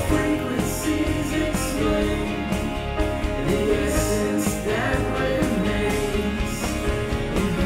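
Background music: layered sustained tones over a soft beat about once a second.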